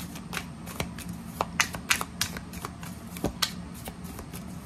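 A tarot deck being shuffled overhand by hand: a quick, irregular run of card flicks and slaps, several a second.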